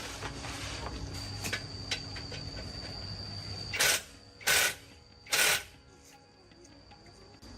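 Background music, with three short, loud hissing bursts near the middle, about half a second apart.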